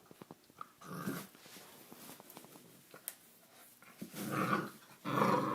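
Puppy growling: a faint one about a second in, then two louder growls of about half a second each near the end.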